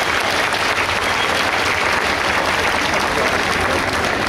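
Crowd of spectators applauding, a dense, steady clapping of many hands.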